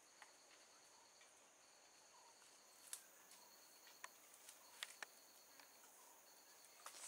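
Near silence: faint forest insects trilling steadily, with a few faint clicks about three to five seconds in.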